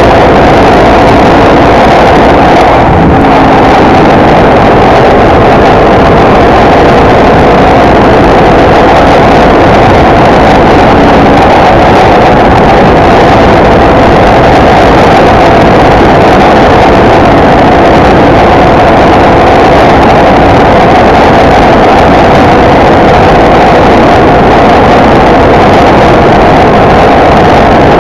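Motorcycle cruising at steady highway speed: the engine runs evenly under a dense, loud rush of wind on the mounted camera's microphone.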